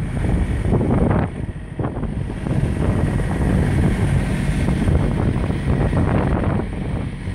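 Wind buffeting the microphone: a steady low rumble that rises and falls.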